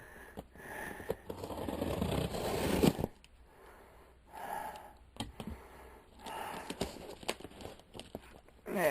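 A shipping package being opened by hand: wrapping rustling and tearing in bursts, the longest stretch stopping sharply about three seconds in, with scattered sharp clicks from the handling.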